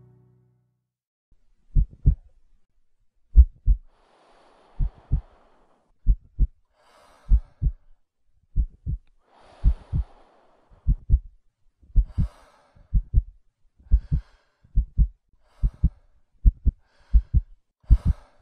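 Heartbeat sound effect: paired low thumps, at first about one beat every second and a half, speeding up steadily, with breathing between the beats that quickens with them.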